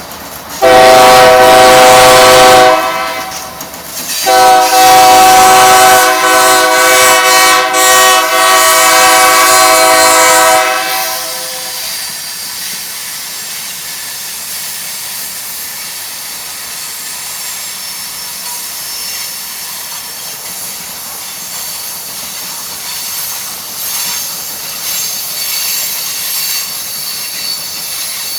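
A GE C44ACM freight locomotive's air horn blowing a short blast, then a long blast of about six seconds: a warning to someone crossing the tracks in front of the train. After it, the freight train rolls by steadily, with faint wheel squeal.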